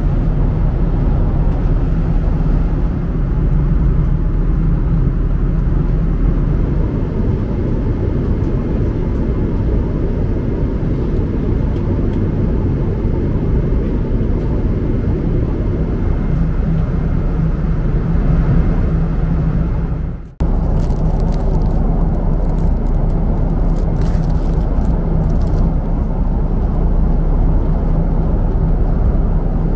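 Steady cabin noise of a jet airliner: a constant low rush of engine and airflow noise that cuts out for an instant about twenty seconds in.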